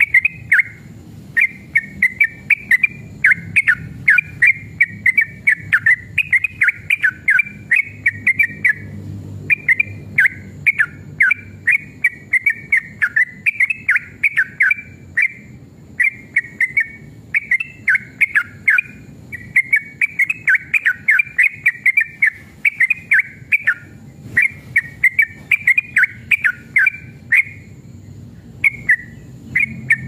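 Yellow-vented bulbul (trucukan) singing in long, rapid runs of quick whistled chattering notes. The runs last a second or more each, with short pauses between them.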